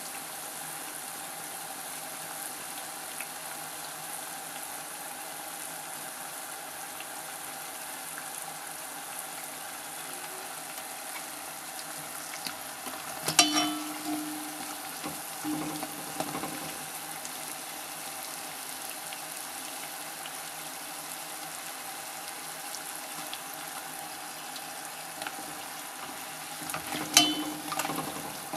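Yum yum dough pastries deep-frying in hot oil in an enamelled cast-iron pot: a steady sizzle of bubbling oil. About halfway through and again near the end come a few sharp knocks and clatters against the pot as the pastries are turned over.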